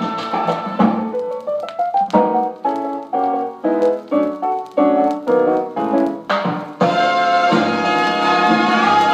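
Band music playing from a vinyl record on a turntable. About two seconds in it turns to a run of short, separate struck chords, about three a second, and the full band comes back in near the end.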